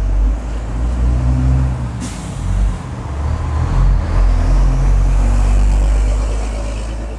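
Deep, steady rumble of a large vehicle's engine, with a short sharp hiss about two seconds in; the rumble grows louder around the middle and eases off near the end.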